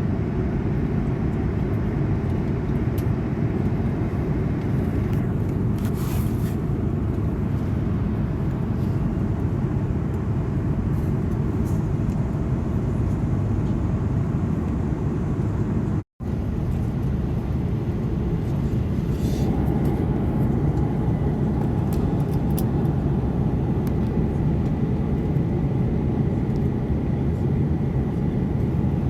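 Airbus A330-200 cabin noise heard from a window seat: a steady, even rumble of engines and rushing air. The sound cuts out for a moment about 16 seconds in, and from about 19 seconds a faint steady hum sits over the rumble.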